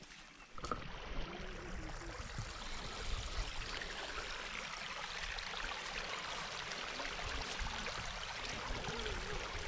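Shallow water running over a rain-washed dirt trail: a steady trickling hiss that comes up about half a second in, with a faint low rumble underneath.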